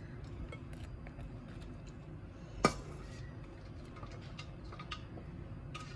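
A metal spoon handling food between a steel plate and a glass bowl: a few light clicks and one sharp clink of the spoon against the dish about two and a half seconds in, over a low steady background hum.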